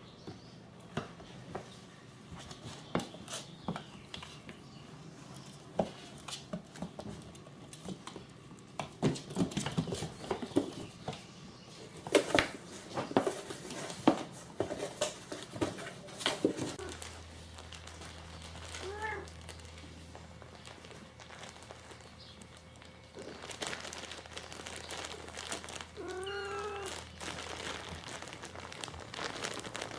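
A cat meows twice: a short call about two-thirds of the way through and a longer, wavering one near the end. Scattered clicks, taps and rustles come in between, thickest in the first half.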